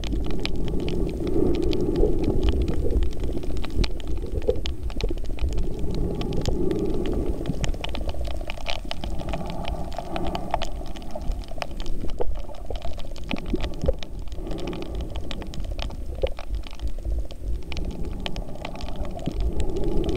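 Underwater sound picked up by a camera held below the surface over a reef: a steady low rumble of moving water, with a rushing that swells every few seconds and many scattered sharp clicks and crackles.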